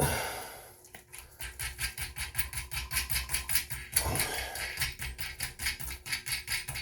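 Metal clink of toilet tank bolt hardware being handled, then a long run of quick, even clicks, about six a second.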